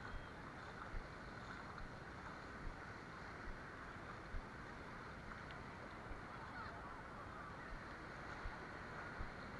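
Steady wind noise on a small camera microphone, with soft low knocks a little more than once a second.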